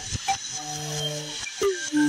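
Experimental electronic music: a low chord of steady held tones, broken by a couple of short clicks, with a tone sliding down in pitch near the end.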